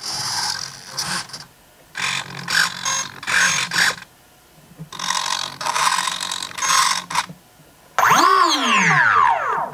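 Small RC servos whirring in three short bursts as the control surfaces are worked from the transmitter during a power-up function check. Near the end the electric motor, with no propeller fitted, spins up briefly and winds down, its whine rising and then falling.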